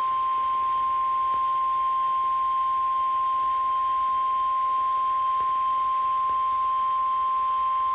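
NOAA Weather Radio's 1050 Hz warning alarm tone: a single steady, unbroken high beep, the attention signal that a warning message is about to follow.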